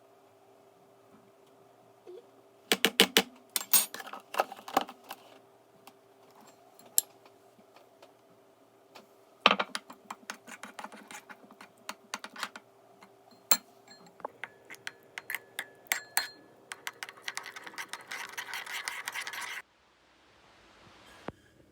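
Scattered clicks and knocks of kitchen utensils and dishes being handled, over a faint steady hum. Near the end, a steady hiss runs for about three seconds and then cuts off suddenly.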